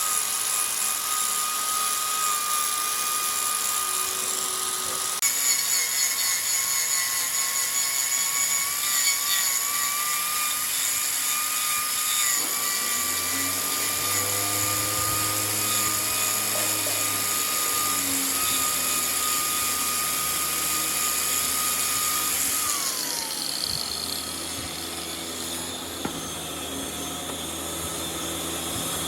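Wood lathe running with a steady high-pitched motor whine and hiss. A lower hum joins about halfway through, and near the end the whine's pitch slides down as the machine slows.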